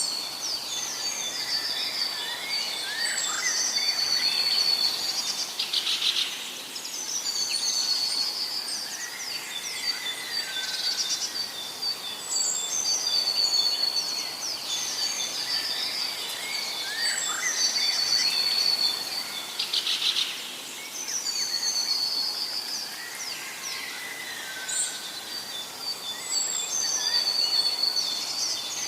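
Birds singing and calling: high, trilled song phrases repeated every few seconds, with short chirps in between and a steady high whine underneath.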